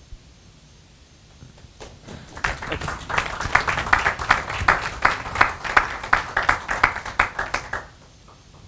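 Small audience applauding: dense, irregular clapping that starts about two seconds in and dies away near the end.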